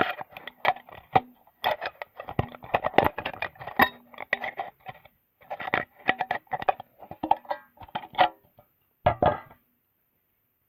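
Scissors cutting through the thin metal wall of an empty can, with irregular snips and crinkling clicks of the sheet metal and a few brief metallic rings; the cutting stops about 9.5 seconds in.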